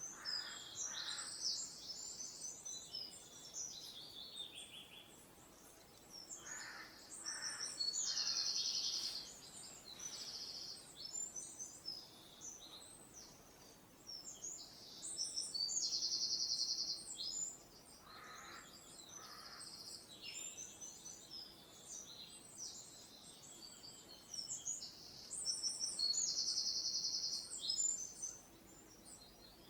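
Birds singing: one bird repeats a high phrase that ends in a buzzy trill about a second long, roughly every eight to ten seconds, among scattered high chirps from others.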